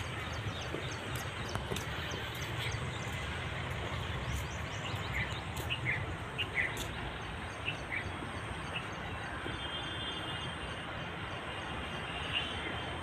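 Outdoor background noise: a steady low rumble, with a handful of short, high chirps about five to eight seconds in.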